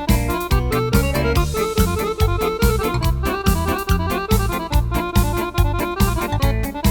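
Yamaha arranger keyboard playing a style demo: an accompaniment with a steady drum beat and bass under keyboard melody and chords.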